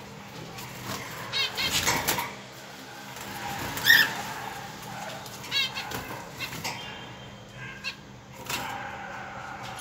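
Pet finch in a wire cage, its wings fluttering, with a few short, high chirping calls about a second and a half, four and five and a half seconds in, and light knocks on the cage.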